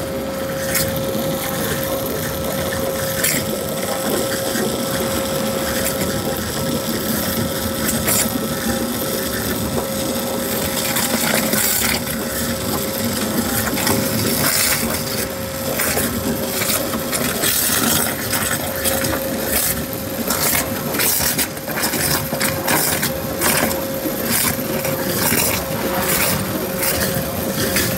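Flow abrasive water jet cutting a plate: a loud steady hiss from the high-pressure jet with dense crackling clicks, which grow thicker about halfway through, over a steady mid-pitched tone.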